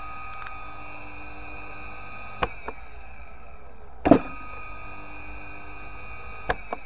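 TEC Motors three-phase electric motor running on test with a steady hum and whine. A sharp double click comes at about two and a half and six and a half seconds, and a heavy clunk about four seconds in is the loudest sound: push buttons and the contactor of its starter box.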